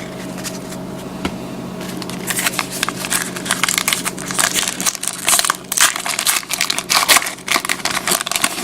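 Crinkling of a trading-card pack's wrapper being handled and torn open, an irregular crackle that grows busier about two seconds in, over a faint steady hum.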